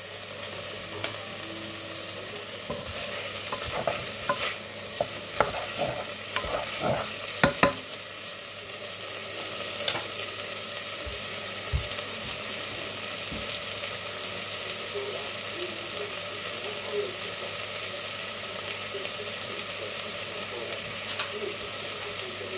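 Chicken pieces sizzling steadily as they fry in a pan, with a handful of sharp knocks and clicks in the first eight seconds or so and a few more later.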